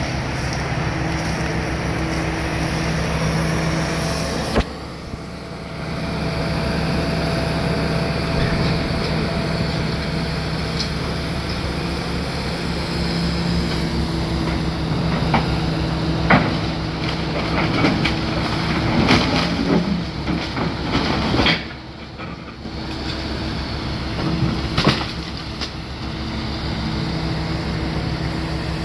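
Hitachi Zaxis 250LC-6 excavator's diesel engine running steadily, dropping away briefly twice. In the second half, scattered sharp clanks and knocks come from loading the end-dump trailer.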